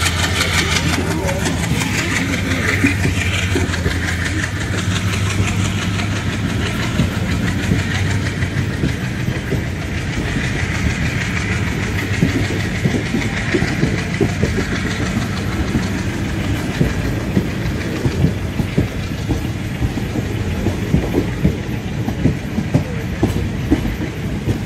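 Passenger train coaches rolling out of a station, their wheels clattering over the rail joints. The clatter gets faster and louder as the train picks up speed. A low, steady engine hum at the start fades as the coaches go by.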